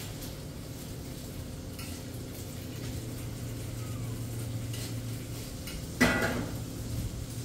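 Pork bacon frying in a pan while the strips are turned with a fork, with light clinks of the fork against the pan and one louder clatter about six seconds in. A low steady hum runs underneath.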